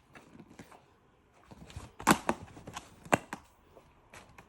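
Small hard objects handled by hand while another charging cable is fetched: a few sharp clicks and knocks, the loudest about two seconds in and another about a second later, with faint rustling between.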